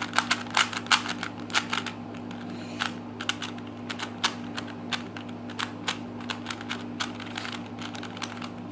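A Rubik's Cube being scrambled by hand: a quick run of plastic clicks as its layers are twisted, loudest and densest in the first two seconds, then lighter scattered clicks.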